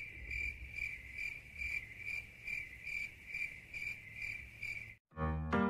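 Cricket chirping in an even rhythm, about two and a half chirps a second at a high, steady pitch. It stops suddenly about five seconds in and music with piano-like notes starts.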